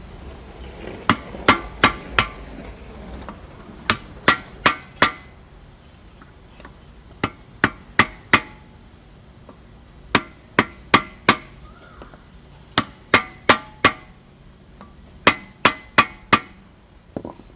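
Sledgehammer blows on a wood block set on a new ABS sensor, driving it down into place. The blows come in six quick bursts of four strikes, each strike with a short metallic ring.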